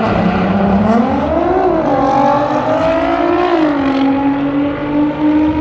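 Drag-racing car's engine at high revs, climbing in pitch about a second in, dropping once a little past halfway, then holding a steady high note.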